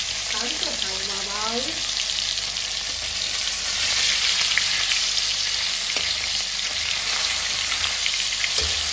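Koi (climbing perch) fish shallow-frying in hot oil in a kadai: a steady sizzle with scattered fine crackles.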